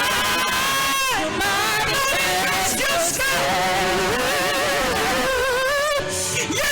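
Worship music with singing: long held, wavering sung notes over instrumental accompaniment.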